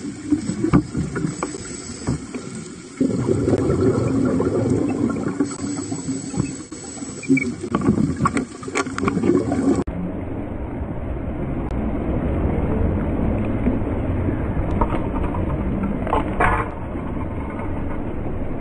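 Underwater noise with scattered clicks and bubbling, louder from about three seconds in. It changes abruptly near the middle to a steady low rumbling noise of water.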